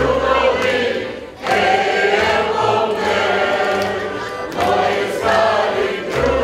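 Large mixed choir of men's, women's and children's voices singing with a folk ensemble of tamburica lutes, double bass and accordion. A plucked bass line steps under sustained sung phrases, with brief breaths between phrases about a second and a half in and again around four and a half seconds.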